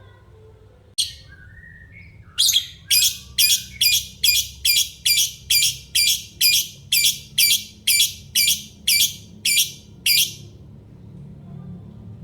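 Lovebird calling: a single call about a second in, then a long run of about eighteen sharp, shrill notes repeated evenly, a little over two a second, that stops near the end.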